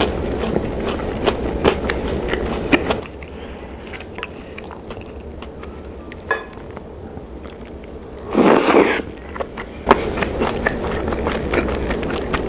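Close-miked chewing with wet, crackly mouth clicks. After a quieter stretch there is one loud bite about eight and a half seconds in, a sharp click, and then the chewing picks up again.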